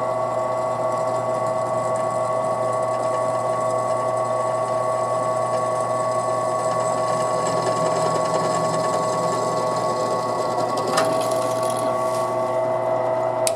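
Air-conditioner idle-up solenoid in a Suzuki Cappuccino's engine bay, giving off a steady, high-pitched buzzing hum that cuts off abruptly at the end. This is the abnormal noise the solenoid makes when it is fitted the wrong way round.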